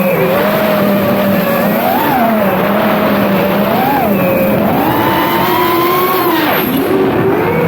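FPV quadcopter electric motors and propellers whining, the pitch rising and falling over and over with the throttle, with one steadier lower tone underneath.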